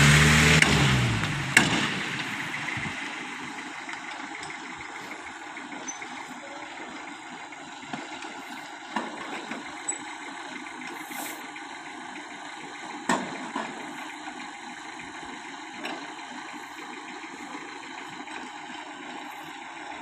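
SANY truck-mounted concrete pump's diesel engine, its revs falling away from high to a low steady running hum within the first two seconds. A few sharp clicks of metal come through the hum later on.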